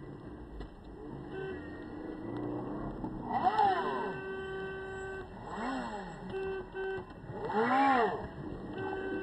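A vehicle engine running with a steady hum, revved three times, each rev rising and falling in pitch; the first and last revs are the loudest.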